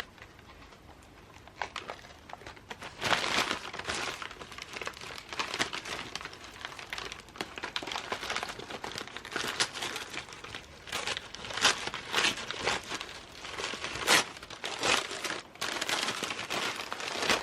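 Packaging crinkling and rustling in irregular bursts as a parcel of books is unwrapped by hand, starting about two seconds in.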